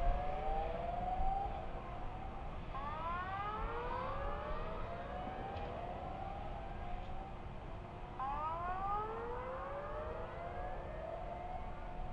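Sirens wailing, several rising wails overlapping and starting again every couple of seconds, over a steady low rush of noise.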